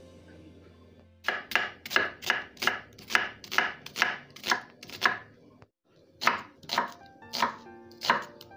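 Kitchen knife slicing a red onion on a wooden cutting board: a steady run of crisp chops, about three a second, starting about a second in, with a short break just past the middle before the chopping resumes.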